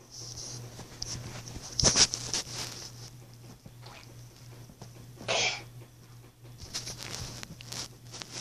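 Small handling noises and rustling on a bed, with one short breathy burst about five seconds in, over a steady low hum.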